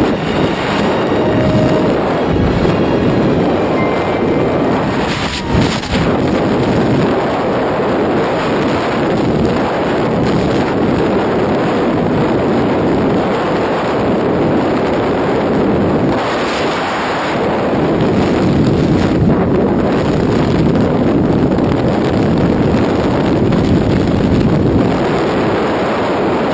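Loud, steady rush of freefall wind buffeting the camera microphone during a tandem skydive.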